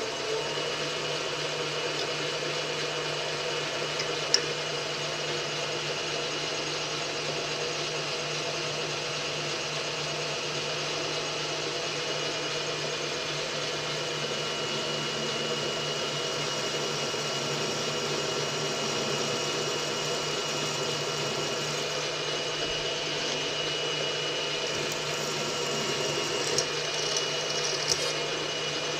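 Milling machine running steadily while a twist drill bores a tap-size hole for a 5/16 coarse thread into the metal die-stock blank. There is a sharp click about four seconds in and a couple of light clicks near the end.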